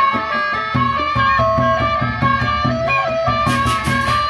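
Baleganjur gamelan ensemble playing: a fast melody on tuned bronze gongs rings over steady beats of large barrel drums. Near the end comes a quick run of clashes from large bronze hand cymbals.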